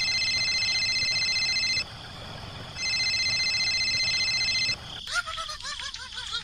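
A telephone ringing: two trilling rings of about two seconds each, a second apart. Near the end, a short warbling sound.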